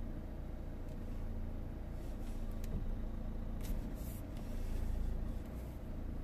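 Renault Trafic's 1.6 dCi four-cylinder diesel engine idling steadily, heard from the cab, with two short scratchy sounds about four seconds in.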